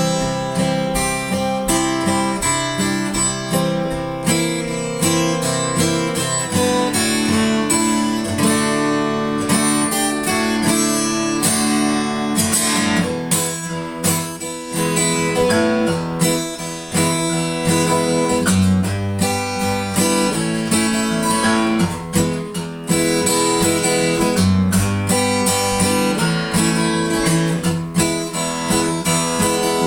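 Instrumental music led by strummed acoustic guitar, with a bass line coming in and out; no singing.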